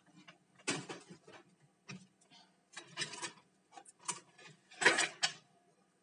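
Plastic clicks and knocks from handling an Acer Aspire laptop's case as it is lifted and turned over, irregular, with the loudest knocks about five seconds in.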